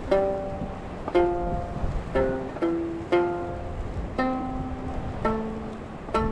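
Kankara sanshin, the tin-can-bodied three-string Okinawan lute, playing a slow melody of single plucked notes, each left to ring. The cold has put its tuning out.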